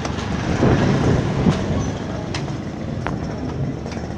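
Motor scooter riding past close by, its small engine running, loudest about a second in and fading as it moves away. A few sharp clicks are heard through it.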